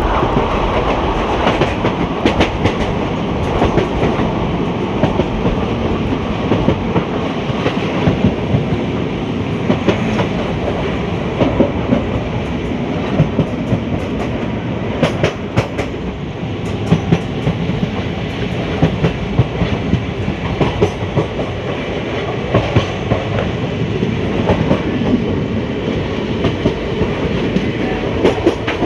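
Wheels of ICF passenger coaches running over the track at speed: a steady rumble with repeated sharp clickety-clack at the rail joints. A quick run of clacks comes about halfway through.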